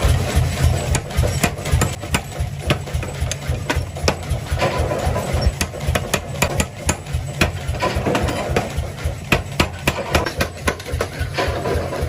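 Forging machinery running with a fast, steady low pulsing, and repeated sharp metal strikes of work on hot metal, a few each second.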